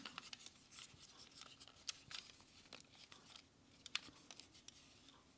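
Faint, scattered small clicks and rubbing from a Transformers Soundwave toy's plastic parts being handled and shifted in the hands.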